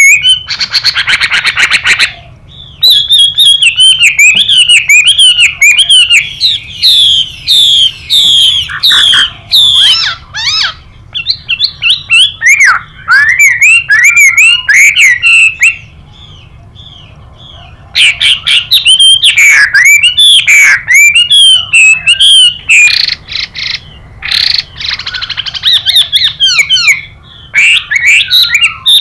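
Chinese hwamei song: loud, rich, varied whistled phrases in bursts with brief pauses. Twice the song is mixed with harsh, buzzy rasping calls, near the start and about two-thirds through: the "xùy" call of a female hwamei in breeding condition.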